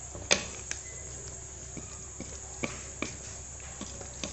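A spoon scraping and knocking against a metal pot as a thick tomato-and-chicken mixture is stirred: a few sharp clicks, the loudest about a third of a second in, over a steady hiss of the sauce bubbling on a high flame.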